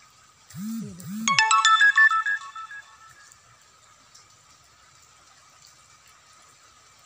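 A short electronic phone ringtone melody: two low swooping tones about half a second in, then a quick run of bright chiming notes that dies away by about three seconds. Faint steady rain hiss lies beneath it.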